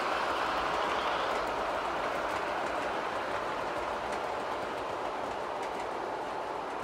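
O-scale model passenger train running along the layout track, a steady noise of metal wheels rolling on the rails that slowly fades as the train moves away.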